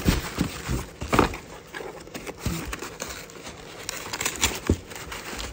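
Candles being handled in a cardboard shipping box: irregular rustling with several sharp knocks, the loudest about a second in.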